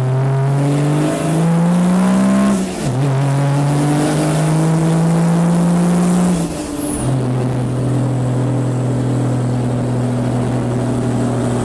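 Car engine accelerating through the gears: the pitch climbs, falls sharply at a gear change about three seconds in and again about seven seconds in, then holds steady.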